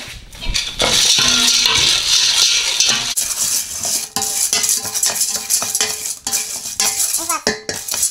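Popcorn kernels rattling and scraping around a stainless steel pot as a wooden spoon stirs them in oil. For the first three seconds it is a dense, hissing rattle; after that it breaks into separate clicks and scrapes.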